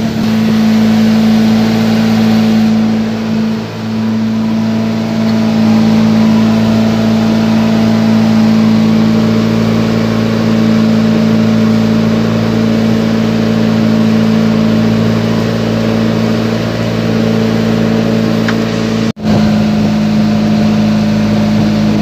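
Motorboat engine running steadily at a constant speed, heard loud from on board. The sound drops out for an instant about nineteen seconds in.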